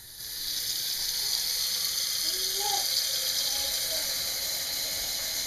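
Kitchen tap running steadily, its stream pouring into a plastic blender jar of chopped acorns in a stainless steel sink: a constant hiss as the jar fills with water.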